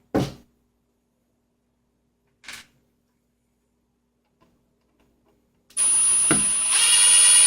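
A couple of faint handling knocks, then a small electric motor whines steadily for about two seconds near the end.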